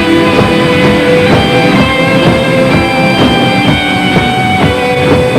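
Instrumental passage of a rock song: guitars and a drum kit playing a steady beat, with no singing.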